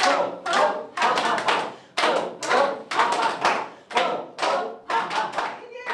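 A group clapping hands together in a steady rhythm, about two claps a second, with voices calling out along with the beat, as in the clapping exercise of laughter yoga.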